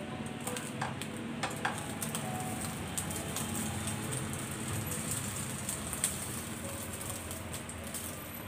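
Omelette frying in a nonstick pan with a steady sizzle, and a few clicks and scrapes of spatulas against the pan as the egg is folded over the pork filling.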